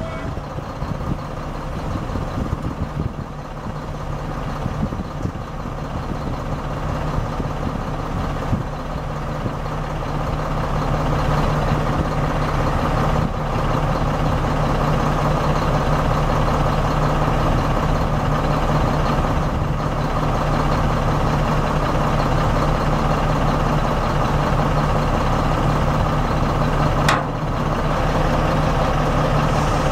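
Mack E7 12-litre inline-six diesel of a 1997 Mack RD688S dump truck idling steadily, growing louder over the first ten seconds or so. A single sharp click comes near the end.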